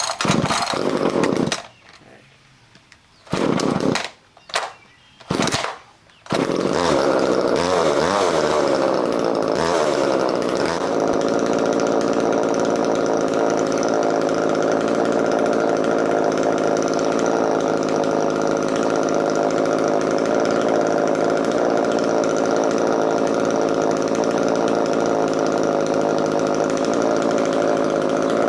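Echo CS-3000 two-stroke chainsaw being pull-started on choke: a few short bursts from the starter pulls, then it catches about six seconds in. It runs with its speed wavering for a few seconds, then settles into a steady run.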